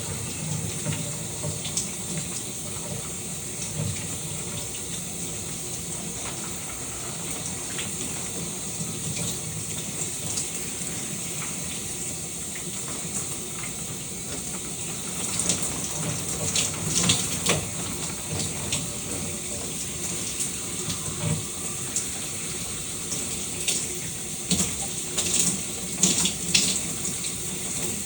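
Shower water running steadily and spattering, a continuous hiss with irregular louder splashes in the second half.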